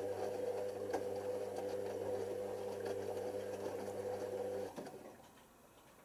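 Hoover Nextra HNL6166 washing machine's motor humming steadily as it turns the drum of bedding during the prewash, then cutting out a little before five seconds in as the drum comes to a stop.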